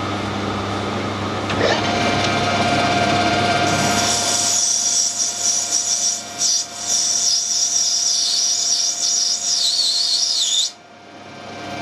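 Metal lathe turning down a brass part to thread size: the machine runs with a steady hum, and from about four seconds in the cut gives a high-pitched, wavering squeal that stops abruptly about a second before the end.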